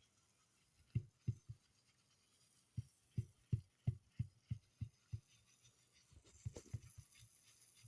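A series of soft, low thumps, about three a second, in short runs with pauses between.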